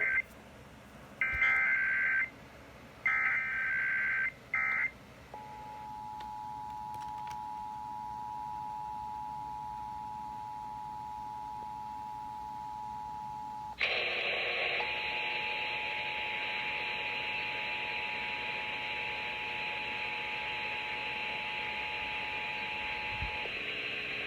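Emergency Alert System signalling: three warbling SAME digital data bursts of about a second each, separated by short gaps, then a brief fourth one. These are followed by the steady two-tone EAS attention signal (853 and 960 Hz). About fourteen seconds in, a loud hiss joins the attention tone, and both stop shortly before the end.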